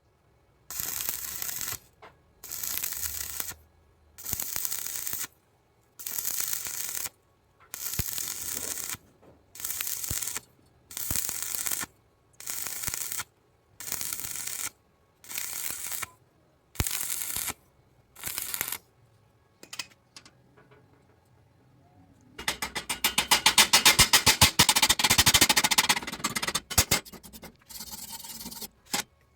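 Stick-welding arc crackling in short bursts of under a second, about one a second, as the rod is struck and lifted again and again to close a long hole bit by bit. After a pause, a longer, louder run of crackling lasts about three seconds.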